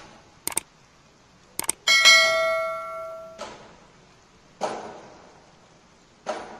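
Subscribe-button animation sound effect: two sharp mouse clicks, then a notification-bell ding that rings out for about a second and a half. Two short bursts of noise follow later.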